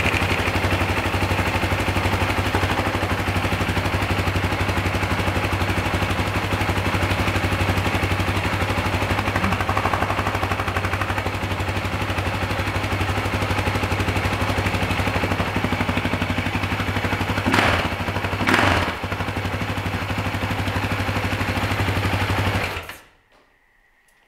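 Husaberg FE 450 single-cylinder four-stroke enduro engine idling with fast, even firing pulses, briefly louder twice around 18 s in. It stops abruptly near the end. The idle has just been lowered with the idle-speed screw and sounds much calmer, freer and slower.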